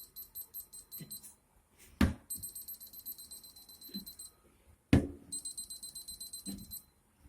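Moisture meter beeping in three runs of rapid high pips, signalling a soaked reading from a wet door. Two sharp knocks come, one about two seconds in and one near five seconds.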